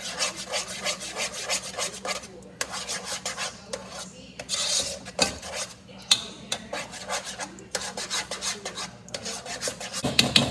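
Gravy being stirred in a pan, a utensil scraping and rubbing against the pan in quick, repeated strokes.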